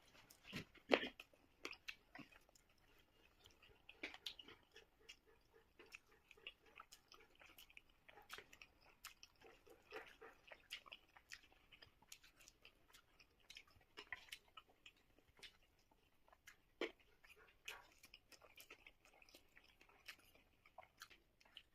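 A person chewing spicy Korean buldak noodles close to the microphone, in many short irregular mouth clicks and smacks.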